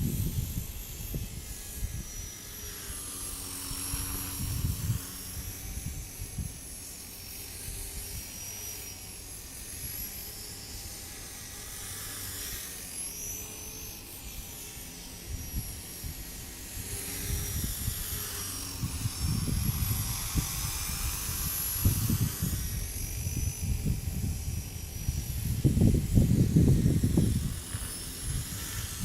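Align T-REX 250 electric RC helicopter in flight: a high motor-and-rotor whine that slowly rises and falls in pitch as it manoeuvres. Strong wind buffets the microphone in low rumbling gusts, loudest near the end.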